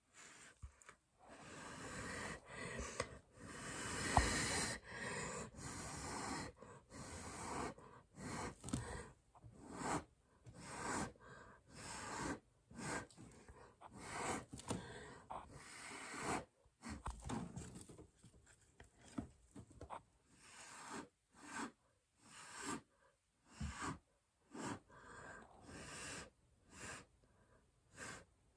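A person blowing on wet pour paint. First comes one longer blow, then a run of short puffs about one a second.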